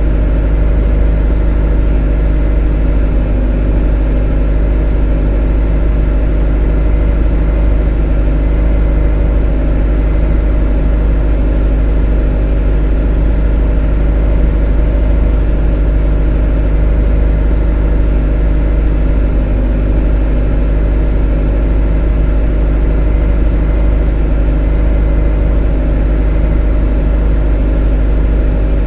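Motor running at a constant speed: a steady deep drone with a stack of even overtones above it that never changes.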